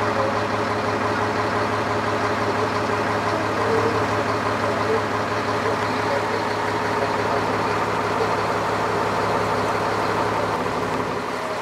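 Engine of a 48-foot charter fishing boat running steadily, a constant low hum with an even wash of noise over it, heard from on board while under way.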